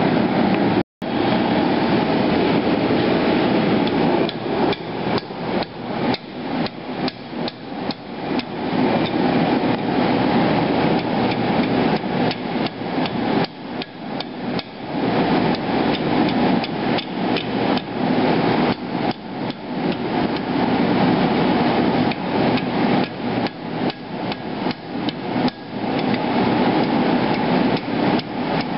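Hand hammer striking red-hot steel on an anvil in quick strokes, several a second with a few short pauses, curling a flattened machete tang into a socket handle. A gas forge's steady roar runs underneath.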